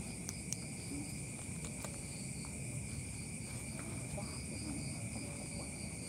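Night insect chorus: steady shrill trilling at several pitches at once, one of them pulsing, with a few faint clicks about half a second in.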